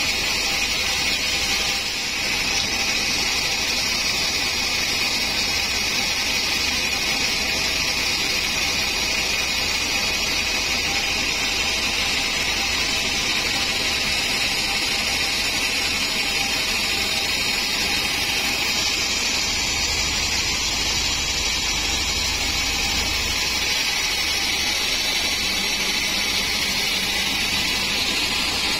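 Sawmill band saw running steadily: a continuous, even hiss with a faint hum underneath.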